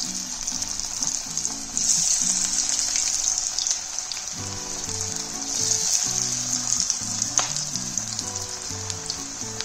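Battered chicken pakoda pieces deep-frying in hot coconut oil: a dense, steady sizzle that swells and eases every few seconds. Soft background music plays underneath.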